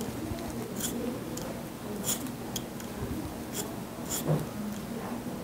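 Microblading hand tool scratching hair strokes into the skin of the hairline: short, light, scratchy strokes at an uneven pace.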